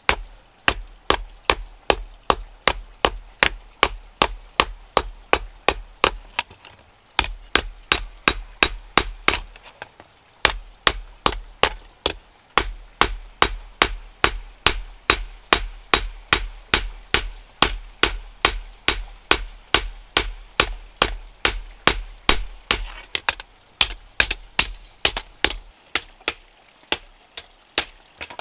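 Hammer blows on metal in a steady rhythm of about three a second, in long runs with short pauses. Through the middle stretch a high metallic ring hangs over the blows.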